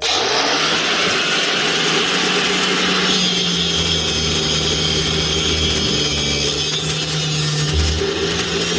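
Angle grinder with a cutoff wheel running steadily and cutting into a threaded drain pipe, with an even motor hum under the cutting noise. The cutting sound turns higher-pitched about three seconds in.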